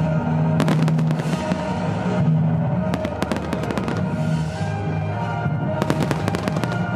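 Aerial fireworks bursting into crackling stars: three spells of rapid crackling, roughly every two and a half seconds, over music with long held notes.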